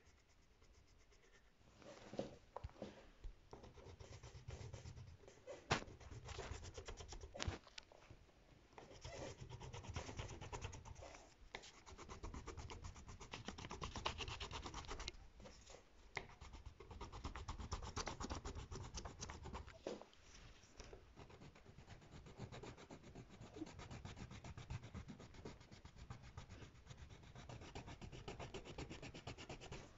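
Yellow coloured pencil shading back and forth on paper: a continuous run of rapid, scratchy rubbing strokes, broken by a few sharper knocks.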